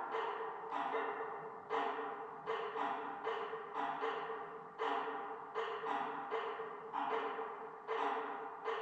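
Background music of gently struck percussive notes, two or three a second, each ringing briefly and fading before the next.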